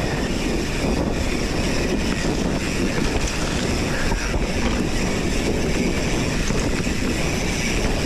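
Steady wind noise buffeting a GoPro action camera's microphone, with the rumble of a mountain bike rolling over a dirt trail.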